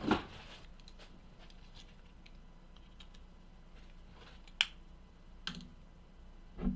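Light plastic clicks and ticks from handling memory cards and a small action camera on a desk, with a sharp click at the start and another a little past halfway.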